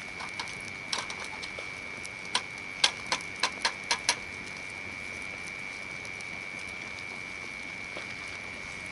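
Hardwood campfire crackling: a run of sharp pops and snaps between about one and four seconds in, over a steady hiss. A thin, steady high-pitched tone runs throughout.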